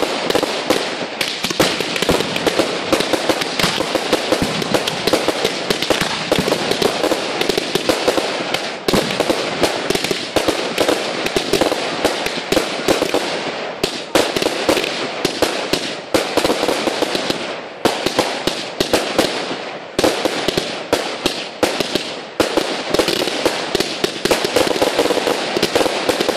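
Aerial fireworks firing in rapid succession: a dense, continuous run of launch thumps, bangs and crackling, with only a few brief lulls.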